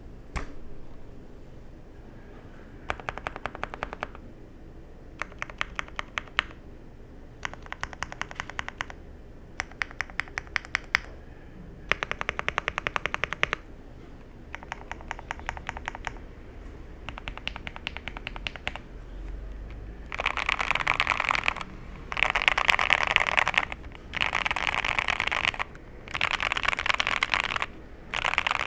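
Mr. Suit mechanical keyboard with lubed Alpaca V2 linear switches on a POM plate, keys tapped in short runs of rapid clicks with pauses between them. From about two-thirds of the way in, five louder, denser bursts of fast keystrokes follow.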